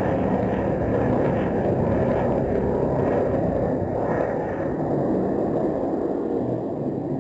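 High-power rocket motor cluster burning, a steady rumble heard from the ground that slowly fades as the rocket climbs away.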